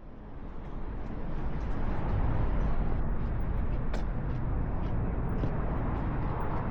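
Outdoor city ambience: a steady low hum of road traffic that fades in over the first two seconds. Faint light ticks sit over it, with one sharp click about four seconds in.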